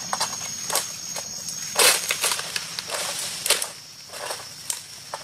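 An egrek (a sickle on a long pole) cutting and scraping at oil palm frond bases: a few sharp strokes, the loudest and longest about two seconds in. A steady high insect whine runs behind.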